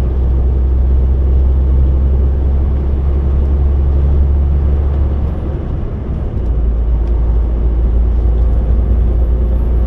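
Lorry driving at road speed: a steady low engine drone with road and tyre noise. The drone dips briefly about six seconds in, then carries on.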